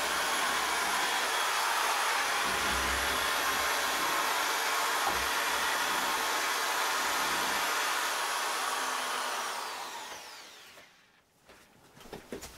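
A mains-powered electric fan motor runs steadily, rushing air. About nine seconds in it is switched off and winds down with a falling whine.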